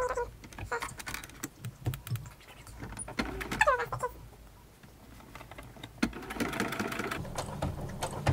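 Electric sewing machine stitching a straight seam in short runs, the needle and feed clicking, with a longer, denser run about six seconds in. About three and a half seconds in there is a short call that falls in pitch, the loudest sound in this stretch.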